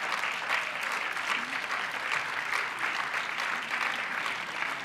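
An audience in a hall applauding steadily, many hands clapping at once in a dense, even patter.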